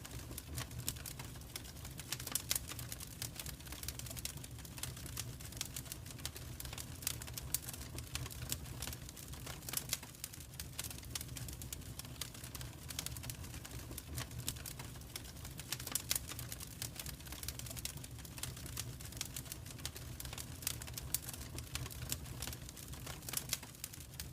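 Wood fire in a fireplace crackling, with irregular sharp snaps and pops over a steady low rumble.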